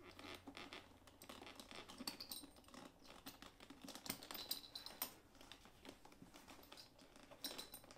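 Faint, irregular clicking and rustling of thick veg-tan leather straps being worked through metal buckles by hand, and of the leather bag being shifted into place.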